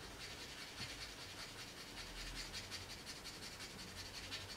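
Mr. Hobby Mr. Chipping rubber block rubbed back and forth over a painted model turret part: faint, quick scratching strokes as the abrasive block wears away the top coat of paint.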